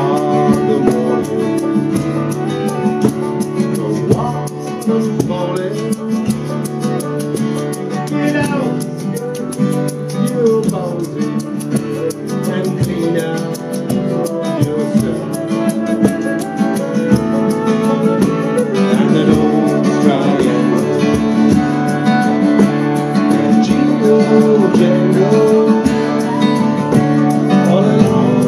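Folk group playing: a transverse flute carrying the melody over a steady strummed accompaniment.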